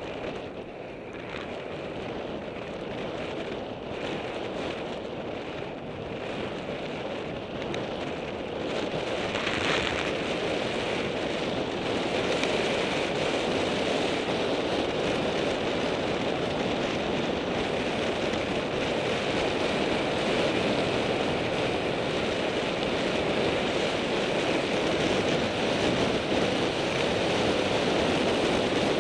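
Wind rushing over the microphone of a camera on a descending bicycle, a steady roar with road noise from the tyres on asphalt, growing louder about a third of the way in as speed builds.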